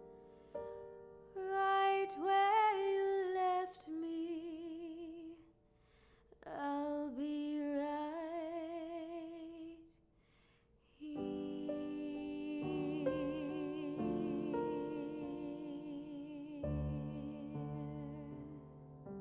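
Soft ballad: a woman singing slowly with wide vibrato over piano, breaking off briefly twice, then held notes over piano chords.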